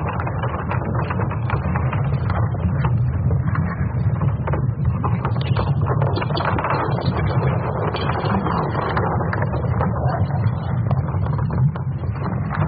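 Space sounds converted to audio: a dense crackling static over a steady low rumble.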